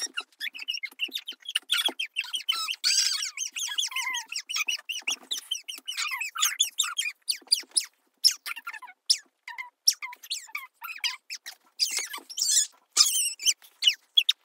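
Young girls' high-pitched, squeaky voices: quick squeals, chirps and laughter coming thick and fast without clear words.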